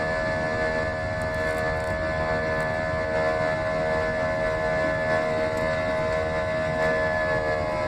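Airliner engines heard from inside the passenger cabin: a steady drone with several held whining tones over a low rumble.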